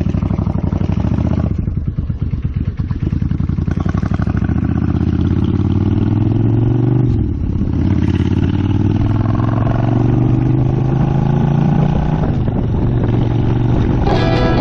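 Motorcycle engine under way, pulling up through the gears: its pitch rises steadily, drops at a shift about seven seconds in, rises again and drops at another shift about twelve seconds in.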